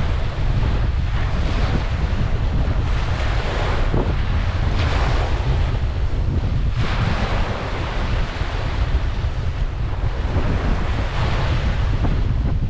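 Ocean waves breaking and washing on a beach, swelling in surges every few seconds, with wind rumbling on the microphone.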